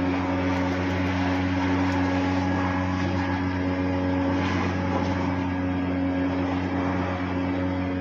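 Large blower running steadily, a low hum under a rushing hiss of air, blasting dust off a baler.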